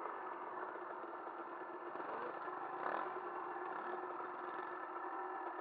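Dirt bike engines running at idle, with an engine revving up and down briefly in the middle.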